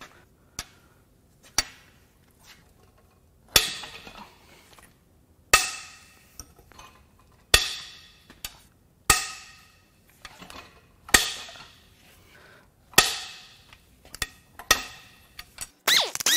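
Loud sharp metallic cracks, each ringing out for a moment, about every two seconds: tight cylinder head bolts on a 3.6L Pentastar V6 breaking loose one after another. Lighter clicks come first, and a quick squeaky rattle starts near the end.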